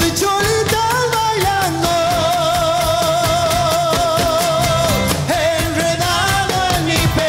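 Argentine folk song playing: a wavering melody line holds one long note through the middle over a steady, evenly struck accompaniment.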